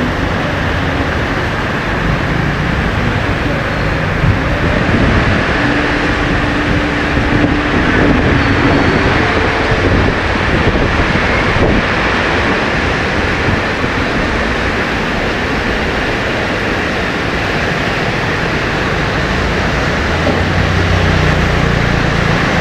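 Heavy rain falling steadily, an even loud hiss, over the low rumble of traffic, with a vehicle passing near the end.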